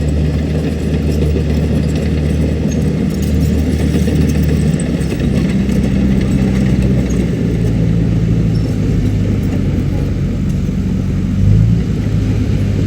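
Heavy construction machine's diesel engine running steadily under work, its pitch stepping to a new level about five seconds in and again a couple of seconds later, with a brief louder surge near the end.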